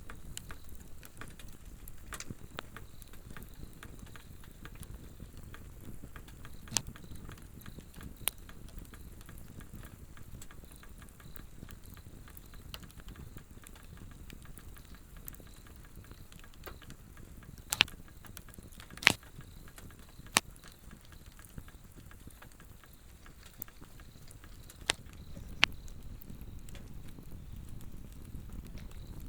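A Swedish torch (an upright log burning from its split centre) crackling steadily, with a handful of sharper pops standing out, the loudest around the middle. Insects trill faintly and steadily high above the fire.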